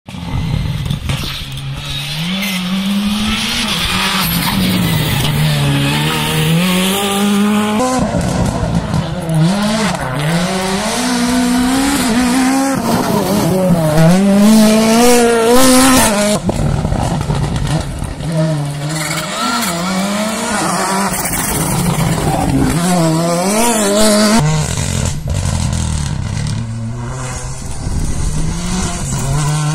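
Several rally cars take the bend at full race pace in turn. Their engines rev hard, the pitch climbing and dropping sharply with each gear change and lift. Each pass is a separate stretch of high revs.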